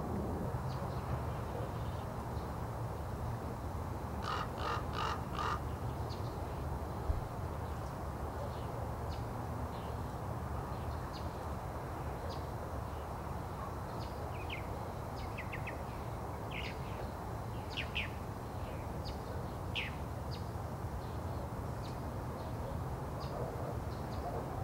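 A crow caws four times in quick succession about four seconds in, and small birds give short, high chirps on and off, over a steady low rumble.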